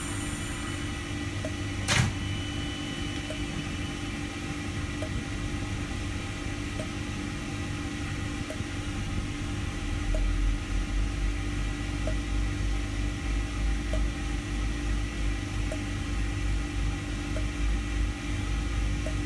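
Train humming steadily, with faint regular ticks, a single sharp click about two seconds in, and a low, unsteady rumble joining about halfway through.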